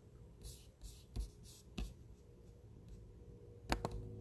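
Faint, scattered soft clicks and taps of a hand working a computer, with a sharper double click about three and a half seconds in, over a low steady hum.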